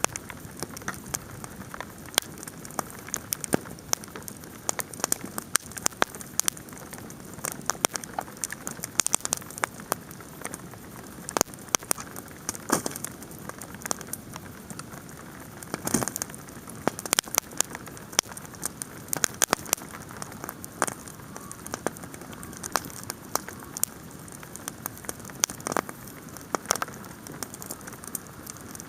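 Outdoor campfire crackling and popping while hail and rain fall, a steady hiss of falling hail with many sharp, irregular clicks throughout.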